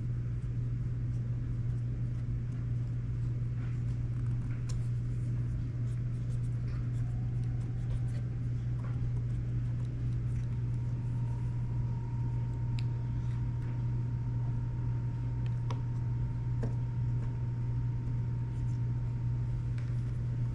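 A steady low hum with scattered faint clicks and taps; a faint thin whine joins about halfway through.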